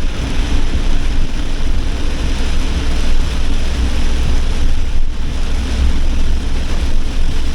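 Torrential rain pounding on a campervan, a dense steady hiss over a strong low rumble.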